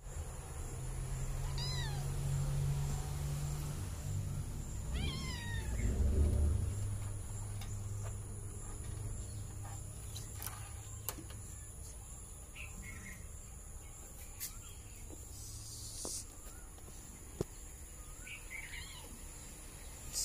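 Domestic cat meowing: two clear meows about 2 and 5 seconds in, then a few shorter, quieter meows later, over a low rumble and a few light clicks.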